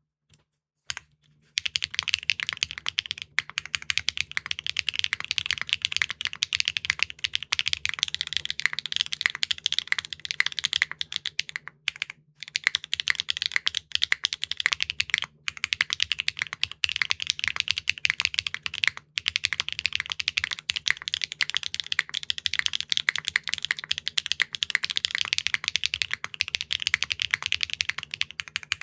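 Custom mechanical keyboard with clacky linear switches being typed on fast and continuously, a dense stream of high clacks. It starts about a second and a half in and pauses briefly twice around the middle.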